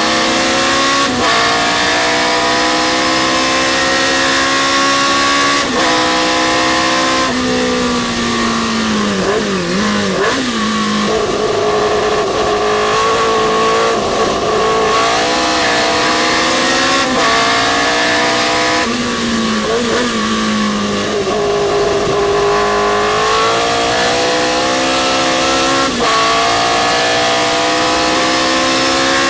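Historic sports racing car's engine under hard racing use. The revs climb steadily in each gear and drop sharply at each quick upshift. Twice, about 8 s and about 19 s in, the engine comes off the throttle and the pitch wavers down through downshifts for a corner, then it pulls up through the gears again.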